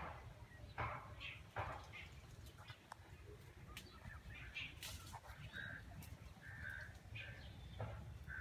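A crow cawing, a series of harsh caws about one every 0.8 s, falling off in the middle while a few short higher bird notes sound, then cawing again near the end.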